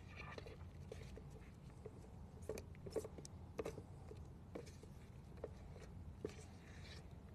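Faint steady room hum with a few light clicks and taps from handling a plastic mixing bucket and stir stick while thick epoxy is poured into a plastic tray; the taps cluster a couple of seconds in.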